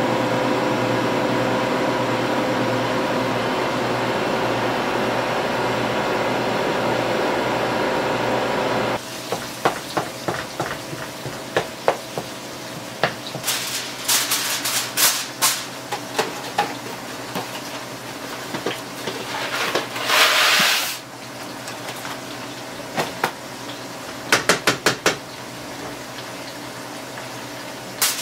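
A freeze dryer running with a steady hum for about the first nine seconds. After that come kitchen stove sounds: a spatula scraping and tapping in cast-iron skillets of frying potatoes, a louder hiss lasting about a second at around twenty seconds in, and a quick run of sharp taps soon after.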